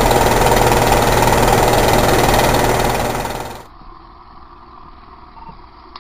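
Fire truck engine running, loud and steady, heard from on the truck. It fades about three seconds in, and the sound then drops to a much quieter background.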